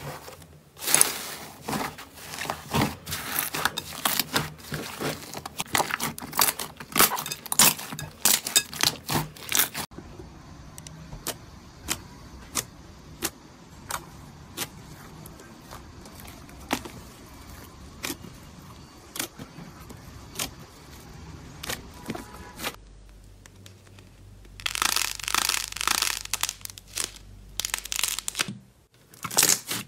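Slime being squeezed, poked and pressed by hand, giving sharp crackling pops and crinkles. The pops come thick and fast at first, thin out to scattered clicks in the middle, then come thick again near the end.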